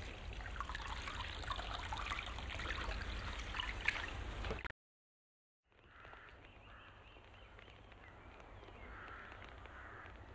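Bathwater splashing and trickling as someone moves in a bath, with many small irregular splashes and drips. It cuts off abruptly about four and a half seconds in, and after a second of silence only a faint, quiet background remains.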